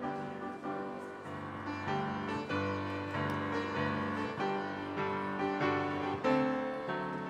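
Piano playing music of chords under a melody, one note after another, at a steady level.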